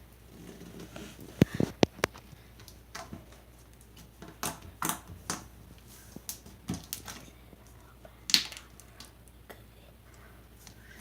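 Slime being spread and worked by hand, making irregular sticky clicks and pops, with a few sharper snaps about a second and a half in and again near the end.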